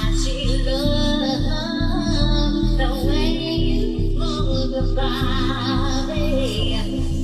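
Background pop/R&B music with a steady beat and bass and a woman's wordless, wavering sung melody over it.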